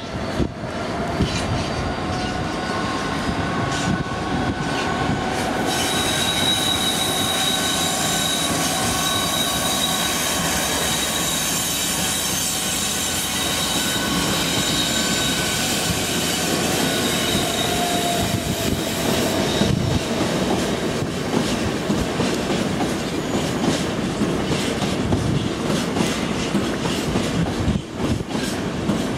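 Freight train wagons rolling past, wheels clicking over the rail joints, with a high-pitched wheel squeal that sets in about six seconds in and dies away around nineteen seconds.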